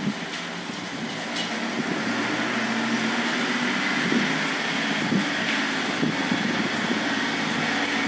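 Steady hiss of rain with a truck engine running underneath.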